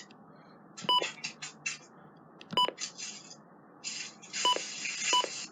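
Short electronic button beeps from a weather radio receiver as its keys are pressed to step through its alert readout, four beeps in all, with brief noisy handling sounds between them.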